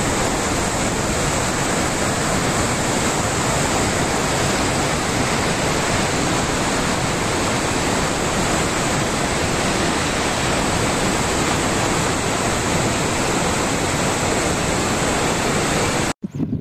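A river in flood, its muddy water rushing past in a steady, loud, even rush. It cuts off suddenly near the end, and a softer, uneven noise follows.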